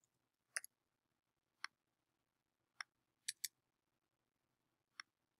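Sparse clicks of a computer mouse and keyboard, about seven in all at irregular spacing, with a quick double click a little past three seconds in; near silence between them.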